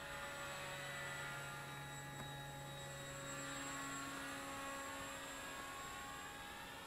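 Radio-controlled paramotor's small motor and propeller buzzing faintly overhead under power, its pitch drifting slowly as the model flies past.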